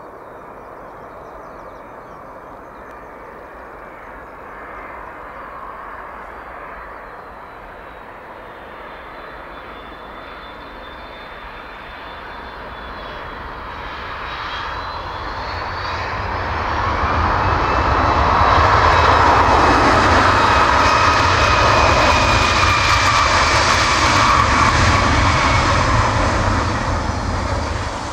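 Boeing 757-223 jet engines: a steady high whine on the approach that slowly falls in pitch. After touchdown the noise swells to a loud roar with a deep rumble for about ten seconds, typical of reverse thrust on the landing rollout, then eases off near the end.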